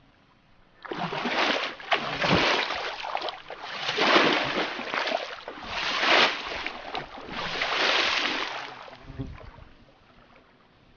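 Shallow lake water being splashed hard, in about five surges a second or so apart, each a loud rush of spray, dying away about nine seconds in.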